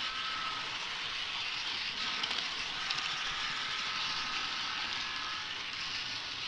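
An HO-scale model train running along the track, heard from a camera riding on it: a steady hiss of wheels on rail with a faint steady whine and a few faint clicks.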